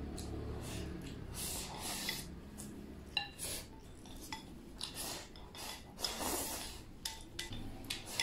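Chopsticks clinking and scraping against a bowl as a person shovels food into the mouth from the bowl's rim, with many short irregular clicks and a few brief ringing clinks.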